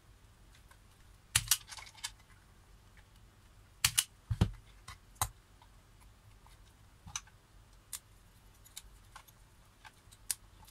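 Sharp clicks and snaps of a spring-loaded automatic wire stripper closing on a red wire and pulling its insulation off, the loudest about a second and a half and four seconds in. Scattered small clicks follow as the stripped wire is handled into a plastic screw terminal connector.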